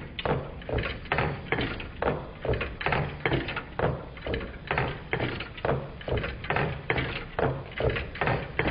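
Twin-cylinder Meccano Stirling engine running, its displacers knocking as they land at each end of their travel: a regular clacking of about two to three knocks a second.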